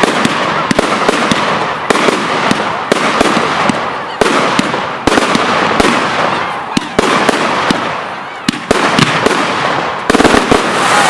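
Fireworks display: a dense, continuous crackle with many sharp bangs going off in quick succession.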